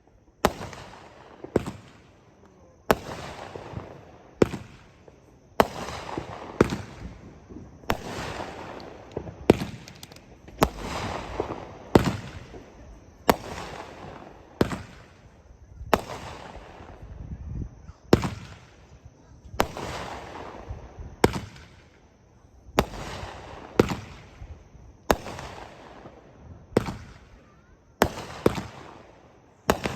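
Dominator '2 Min Block Party' firework cake firing shot after shot, about one a second. Each shot is a sharp bang that trails off into a fading hiss.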